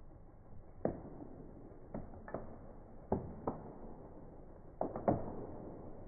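Irregular series of about seven sharp knocks or cracks, each with a short ring, heard while a spruce is being felled.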